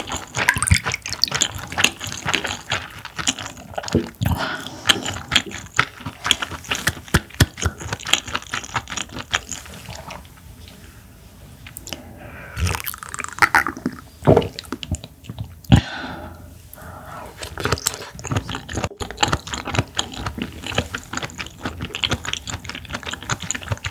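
Close-miked wet chewing of clam meat: dense, sticky mouth clicks and smacks, easing off for a couple of seconds about ten seconds in before picking up again.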